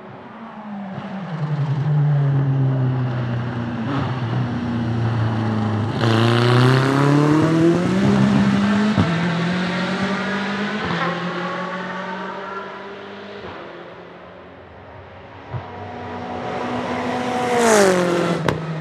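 Aston Martin Vantage GTE race car's 4.0-litre twin-turbo V8 accelerating hard, its pitch climbing over several seconds with a few brief breaks. Near the end the car passes close by, loudest, and the pitch drops steeply as it goes.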